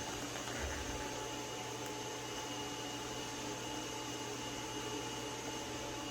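Steady electric motor hum with a faint high whine running evenly throughout.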